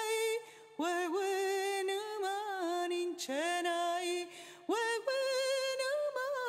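Background music: a solo voice singing unaccompanied, holding long notes that slide up into each pitch, with two short breaks between phrases.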